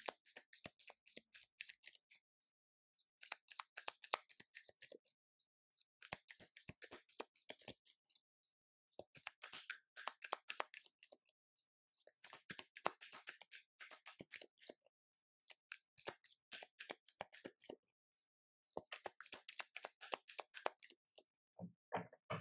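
Tarot deck being shuffled by hand: seven bursts of quick, crisp card flicks about two seconds each, a short pause between them, and a soft knock near the end as the deck is settled.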